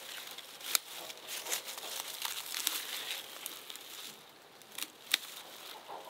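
Irregular crinkling and rustling, broken by a few sharp snaps, the loudest about a second in and about five seconds in.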